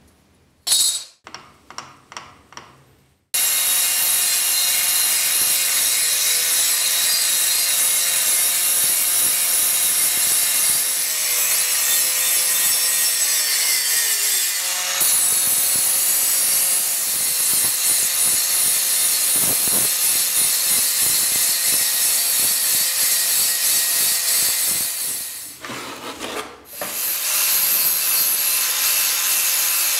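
After a few short scrapes, an angle grinder with an abrasive disc starts up suddenly and grinds a rusty steel knife blade with a steady, harsh noise. Its motor tone sags now and then, and the grinding dips briefly near the end before it carries on.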